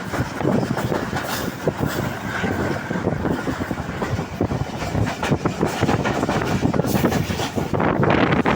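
A moving train running: a steady rolling rumble with frequent irregular clattering and rattling.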